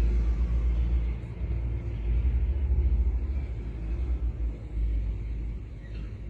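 Low, uneven rumble of outdoor background noise. It is loudest in the first few seconds and eases off near the end.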